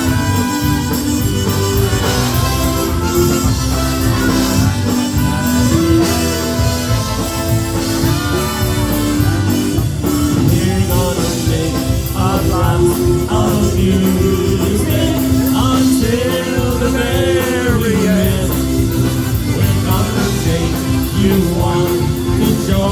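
Live polka band playing an instrumental passage between sung verses, with a steady beat and held, wavering melody lines.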